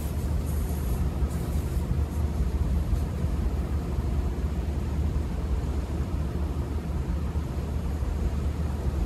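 Steady low rumble, heaviest in the bass, with no distinct knocks or other separate sounds.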